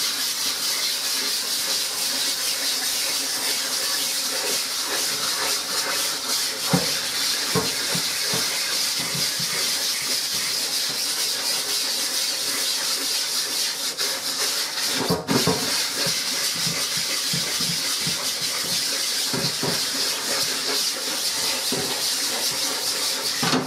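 Brush scrubbing bleach into the mesh of a silkscreen to break down the emulsion: a steady, rapid hissing rub, with a few light knocks about a third and two thirds of the way in.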